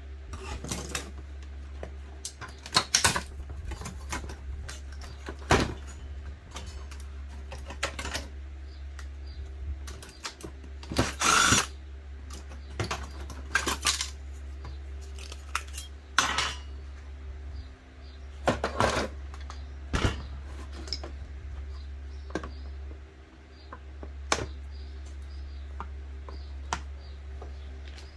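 Hand tools clicking, knocking and scraping against a circuit board in irregular bursts, with a longer scrape about eleven seconds in, as small inductors are pried off and their copper wire is unwound. A steady low hum runs underneath.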